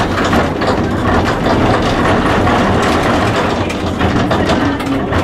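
A 1912 tram running along street rails, heard from inside its wooden driver's cab: a steady rumble of wheels and running gear with scattered clicks and rattles.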